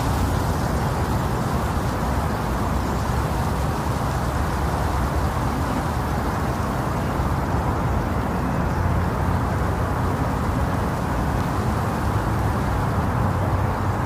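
Wind blowing steadily: an even, deep rush with little high hiss.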